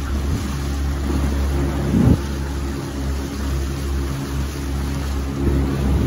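Tour boat's engine running steadily while the boat is underway, with a short thump about two seconds in.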